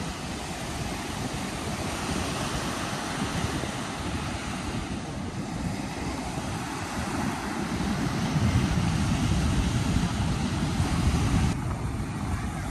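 Surf breaking on the beach, with wind rumbling on the microphone; the sound swells about eight seconds in and eases near the end.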